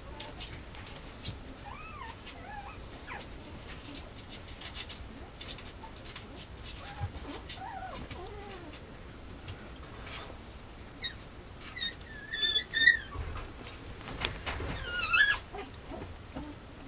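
A Mame Shiba puppy whimpers faintly a few times amid soft clicks and scuffling as it chews plush toys. In the last few seconds come several louder, higher squeals, one gliding up in pitch.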